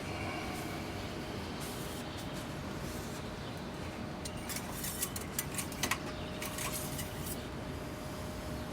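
Light clicks and rattles from a metal engine-oil dipstick being pulled from its tube and handled, in a cluster about halfway through, over a steady low background hum.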